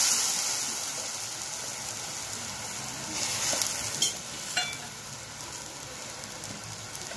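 Water added to the hot oil, onions and chillies in a kadai sizzles, the sizzle dying down over the first couple of seconds into a quieter steady simmer. Two light clinks come about four seconds in.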